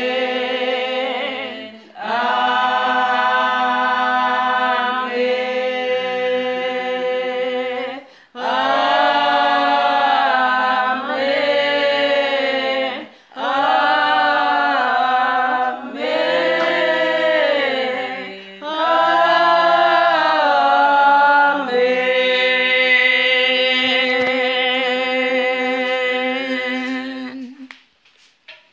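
Church congregation singing a hymn unaccompanied, many voices together, in phrases broken by short breaths; the last long held note fades out near the end.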